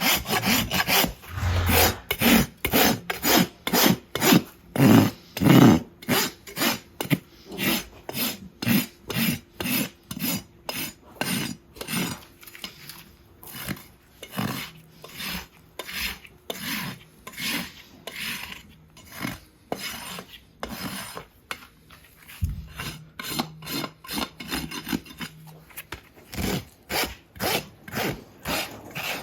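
Farrier's rasp filing a horse's hoof in steady back-and-forth strokes, about two a second.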